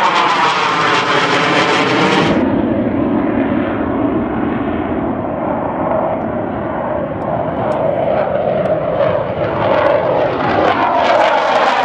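Military jets climbing out after takeoff, passing overhead with loud, continuous jet engine noise. A sweeping whoosh eases about two seconds in, and another rising sweep builds near the end as the next jet approaches.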